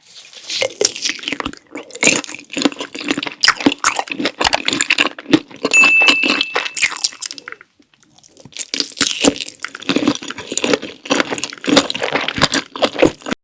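Close-miked eating sounds of Carbo Buldak fire noodles and sausage with cheese sauce being chewed: a rapid run of mouth clicks and crackles, with a pause of about a second near the middle.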